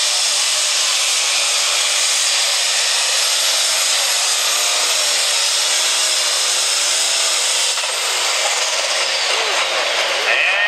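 Turbocharged diesel engine of a Farmall light pro stock pulling tractor running at full throttle while dragging a weight-transfer sled, its engine speed surging up and down. About eight seconds in the note changes and drops as the throttle comes off at the end of the pull.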